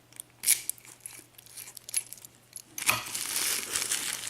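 Keys and small lock cylinders being handled: a few sharp metal clicks, then a longer stretch of keys jangling about three seconds in.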